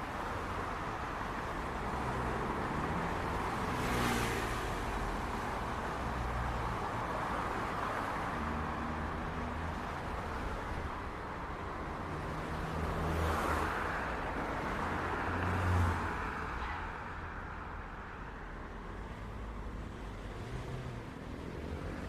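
City street traffic: a steady hum of cars on the road, with vehicles passing close by about 4 seconds in and again around 13 seconds, and a deeper engine rumble swelling near 16 seconds.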